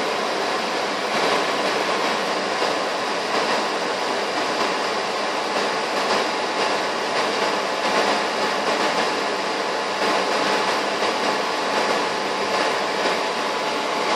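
Delta P2780 12-volt, 100 CFM fan in a homemade solder fume extractor running steadily: a kind of noisy rush of air with a thin, steady whine.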